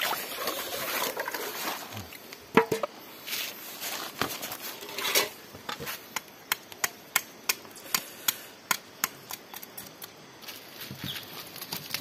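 A knife chopping on a wooden surface as freshly netted fish are cleaned: scattered handling noises at first, then from about halfway a run of sharp, even knocks, about three a second.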